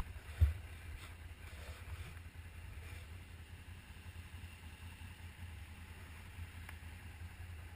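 Can-Am ATV's V-twin engine idling with a steady low rumble, and one sharp thump about half a second in.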